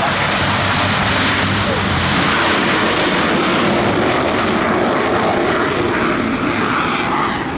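Loud, steady jet noise from Blue Angels F/A-18 Super Hornets flying their demonstration. It eases off a little near the end.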